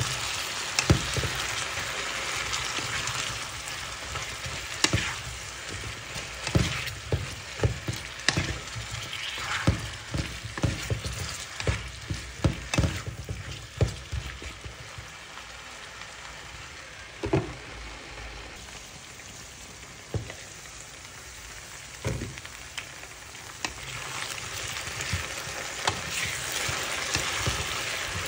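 Cubed potatoes frying in oil in a non-stick pan, sizzling steadily, while a wooden spatula stirs them with repeated knocks and scrapes against the pan. The knocks come thick and fast in the first half and only now and then afterwards, and the sizzle grows louder near the end.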